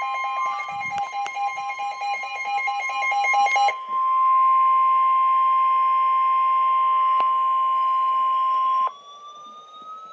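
NOAA Weather Radio warning alarm tone, the steady 1050 Hz EAS attention signal announcing a Special Marine Warning: one unbroken high tone, mixed for the first three and a half seconds with a harsher chord of other tones, then on its own until it cuts off sharply about nine seconds in.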